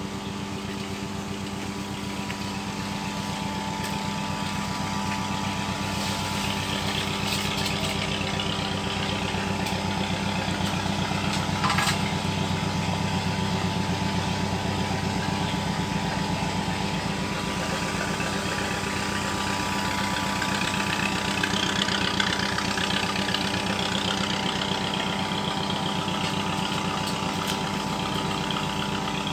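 A small engine running steadily, a hum of unchanging pitch, with a few faint clicks and knocks over it.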